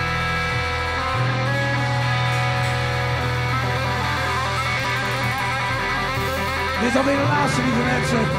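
Live rock band playing an instrumental passage: electric guitar over drums. A voice comes in near the end.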